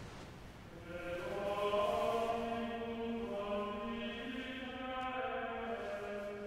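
Voices chanting in unison, sustained notes that move slowly from one pitch to the next, starting about a second in.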